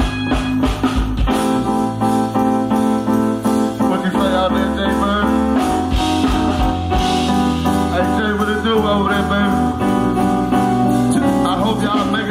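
Live band music: held bass notes under keyboard chords, with a wavering melody line over the top.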